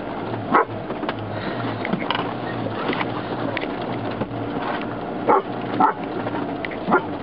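A dog barking at a moving off-road vehicle: one bark about half a second in, then three more near the end. The steady drone of the 4x4's engine runs underneath.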